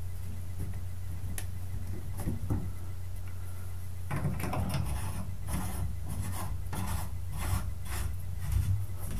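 Scraping and rubbing by hand in the valve body of a Delta 1700-series bath faucet, as the new cartridge and its retaining parts are worked in and tightened. A few light clicks at first, then about four seconds in a run of scraping strokes, one or two a second.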